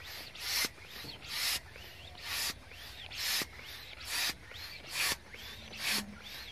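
Hand-held balloon pump working in steady strokes, about one a second, each a short hiss of air pushed into a latex balloon, with a thin squeak after most strokes.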